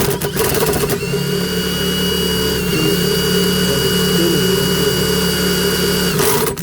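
Power drill with a socket spinning a garbage disposal's shaft, a steady whirring motor whine that cuts off near the end. The disposal turns freely, with nothing stuck in it.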